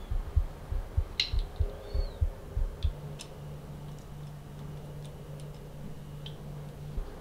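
Small sharp clicks and ticks of metal and plastic parts as the cutters and retaining rings are worked out of a Philips rotary electric shaver's head by hand. A run of dull low thuds comes through the first three seconds, and a steady low hum follows.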